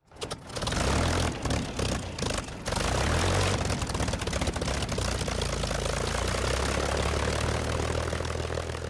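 Propeller aircraft engine running, uneven with a few brief breaks in the first seconds, then a steady drone.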